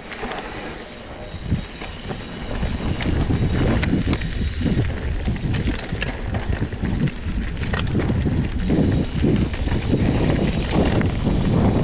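Wind rumbling on the action-camera microphone while a full-suspension mountain bike rolls along a forest singletrack, with scattered small clicks and rattles from the tyres and bike. It grows louder a few seconds in.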